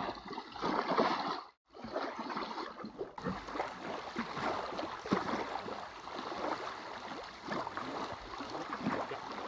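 Small waves lapping and splashing on a sandy shore, an uneven wash of water noise. It drops out completely for a moment about one and a half seconds in, then comes back fuller and brighter from about three seconds in.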